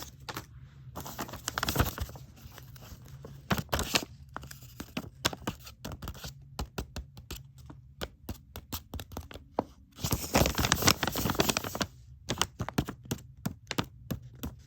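A blind bag's packaging being handled, crinkled and torn open by hand: irregular crackles and sharp clicks, with the densest crinkling about ten seconds in.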